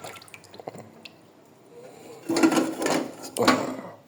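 Kitchen handling noise: a cooking pot and utensils being moved with light clinks, then two louder scraping, rustling bursts of about half a second each, one after the other.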